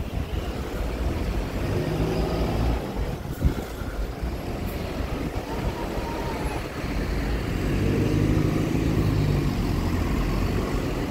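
Slow city traffic: car and bus engines running, with a bus engine swelling to the loudest point about eight seconds in as it passes close.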